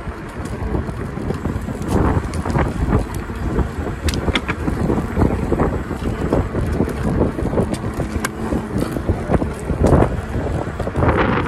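Wind buffeting the microphone of an electric scooter riding along a concrete footpath, with frequent sharp rattles and knocks as it rolls over the path.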